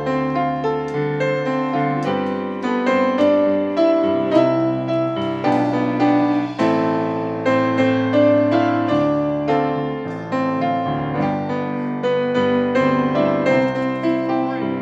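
Stage keyboard with a piano tone playing a slow instrumental interlude of a worship song: soft chords with a melody line over them.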